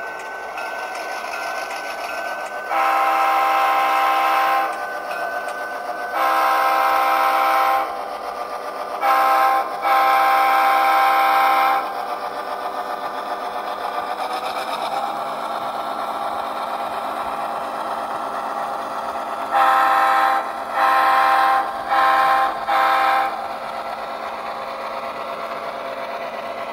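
Athearn HO scale GP7u model locomotive's Tsunami2 DCC sound decoder playing a diesel engine running with a chime air horn over it. The horn gives long, long, short, long blasts, the grade-crossing signal, then four shorter blasts near the end. The engine pitch rises a little about halfway through as the model pulls away.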